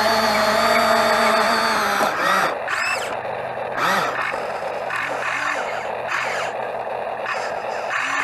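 Excavator engine and hydraulics running: a steady pitched whine for about two seconds, then a rougher, shifting mechanical sound with brief pitch sweeps.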